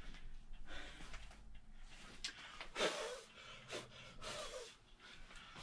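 A man's breathing and short exhaled sighs, with a light click about two seconds in.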